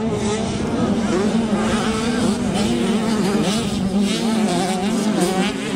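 Dirt bike engines running and revving up and down as the motocross bikes race past on the track.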